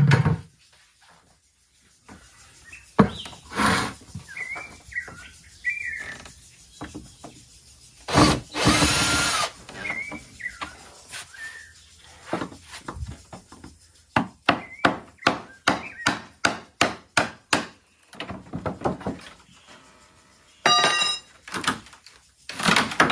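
Work on an old wooden door: a power drill runs for about a second and a half, then comes a quick, even run of about a dozen knocks. Near the end there is a short squeal as a glued board is pulled loose from the door.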